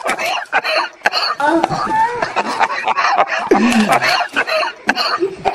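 Children giggling and laughing in short bursts.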